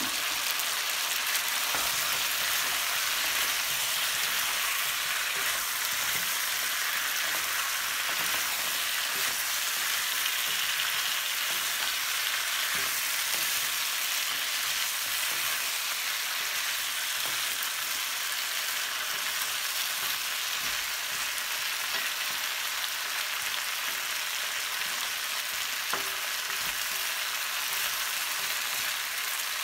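Sliced potatoes and vegetables sizzling steadily in an oiled frying pan as they are stir-fried, with light taps and scrapes of wooden chopsticks and a wooden spatula against the pan.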